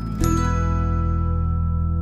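A short musical jingle. A bright chime-like chord is struck about a quarter second in and rings on, slowly fading.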